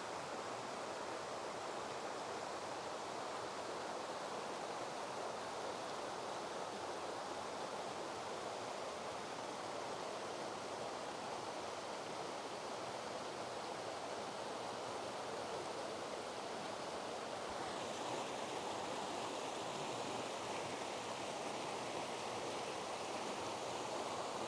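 Waterfall and cascading stream water rushing: a continuous, even roar of water. About two-thirds of the way through it turns a little brighter and hissier.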